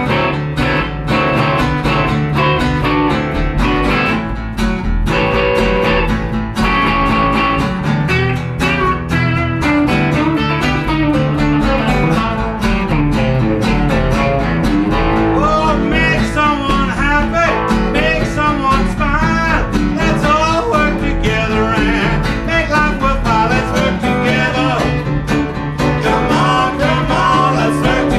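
A live blues band playing, with guitar over a steady low accompaniment. About halfway in, a lead line with bent, sliding notes comes in.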